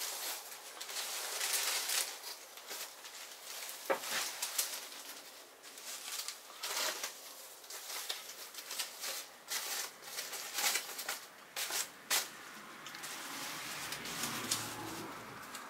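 Clear plastic wrap crinkling and EVA-foam angel wing feathers rustling as the wings are handled and turned over, with a few sharp crackles of the plastic.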